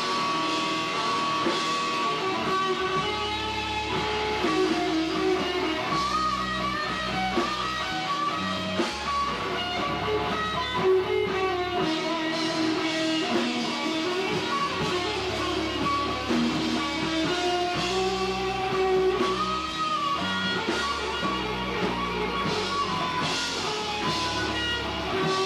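Rock band playing an instrumental passage without vocals: electric guitar playing held, bending notes over drums and cymbals.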